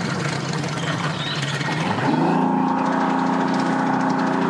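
Mercury 250 Pro outboard on a bass boat running at low speed, then throttled up about two seconds in and held at a higher, steady pitch. The motor is pushing the boat forward to power-load it onto its trailer.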